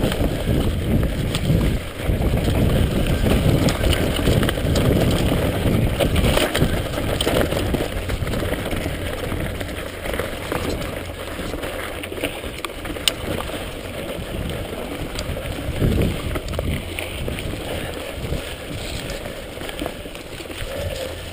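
Mountain bike riding down a rough dirt singletrack, heard from a GoPro mounted on the rider: a continuous rush of tyre and wind noise with scattered knocks and rattles from the bike over bumps, louder through the first half and easing after about ten seconds.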